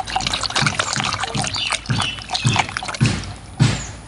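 Water splashing and sloshing in a steel bowl as a hand swishes and rubs plastic toy animals, with a soft splash roughly twice a second that eases off near the end.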